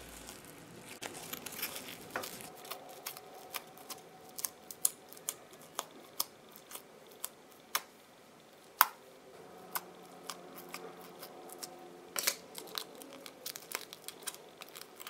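Crunchy foam-bead slime (floam) squeezed and kneaded by hand, giving irregular crackles and small pops, with one louder click a little past the middle.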